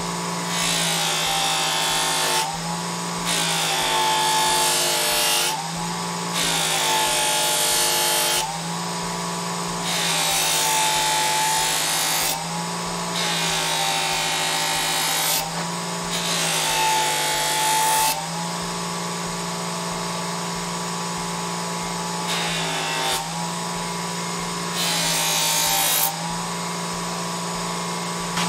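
Electric bench buffer running steadily while a knife blade is pressed against its jeweler's-rouge-charged cloth buffing wheel in repeated strokes of about two seconds. Each stroke is a rushing hiss that pulls the motor's hum slightly lower under the load. The strokes pause for a few seconds about two-thirds of the way through.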